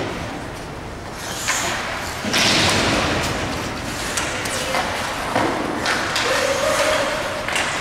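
Ice hockey play in an echoing arena: sharp clacks and thuds of sticks and puck, with a loud hiss of about a second, like skates scraping the ice, just after two seconds in. Near the end a voice holds one long shouted note.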